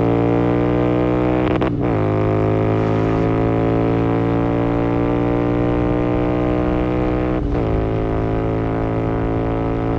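Royal Enfield Continental GT650's 648 cc parallel-twin running through a Gursewak aftermarket exhaust while being ridden, a steady deep note that climbs slowly in pitch under throttle. The note breaks briefly twice, about two seconds in and again near seven and a half seconds.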